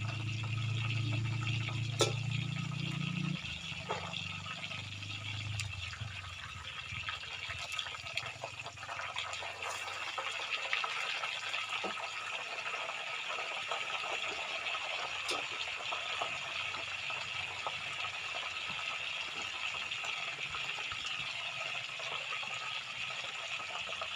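Tofu frying in hot oil: a steady sizzle with scattered sharp pops. A low hum runs under it for the first few seconds and drops away about three seconds in.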